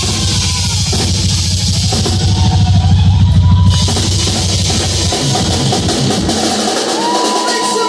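Live rock band with the drum kit to the fore: a fast, busy pattern of bass drum and cymbals. The cymbal wash stops about halfway in and the bass drum drops out about three-quarters through, leaving the rest of the band with a held high note.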